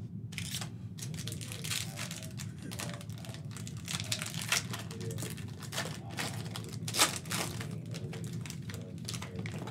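Crinkling of a plastic trading-card pack wrapper and a stack of cards shuffled and flicked through by hand: a run of irregular crackles, with a louder crackle about seven seconds in.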